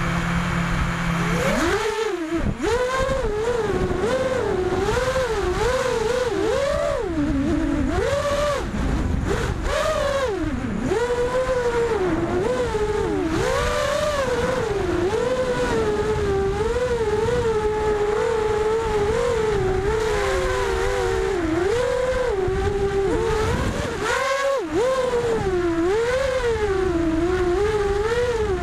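Onboard sound of an FPV racing quadcopter on a 4S battery: its brushless motors and propellers whine, the pitch rising and falling constantly with the throttle, over a low rush of wind on the onboard microphone. The whine climbs sharply at takeoff about two seconds in and drops out briefly around twenty-four seconds in.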